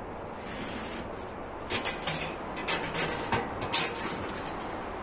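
Dishes and utensils clinking, about eight light, irregular clicks and clinks in a burst of about two seconds.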